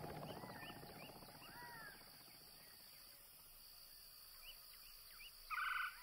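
Outdoor desert ambience of small bird chirps over a steady high hiss. Near the end a louder, harsh pulsed bird call sounds once, about half a second long.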